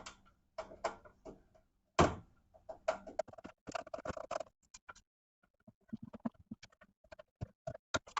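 Irregular clicks, taps and small knocks of hand work with tools and parts, with one louder knock about two seconds in.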